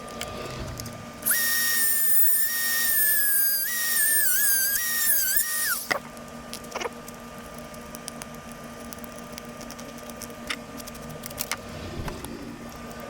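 A small electric motor whines for about four and a half seconds. Its pitch holds steady at first, then wavers up and down before it stops abruptly. A few light clicks of handling follow.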